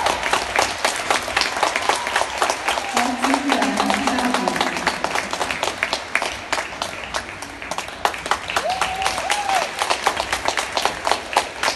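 Audience applauding: many hands clapping unevenly, fading slightly towards the end.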